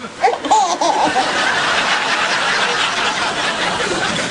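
Baby laughing: a few high, wavering squeals in the first second, then a steady breathy hiss.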